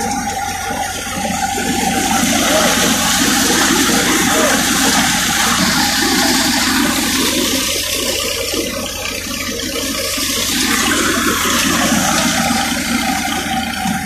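Wheat thresher running at work: a loud, steady rushing of straw and chaff blowing through the machine, with a steady whine underneath that drops away for a few seconds in the middle.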